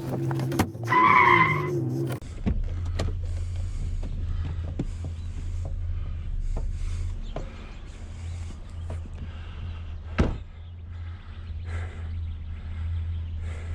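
A van's engine comes on about two seconds in, after a brief loud whine, and then runs with a steady low rumble as the van is moved. A single sharp knock sounds about ten seconds in.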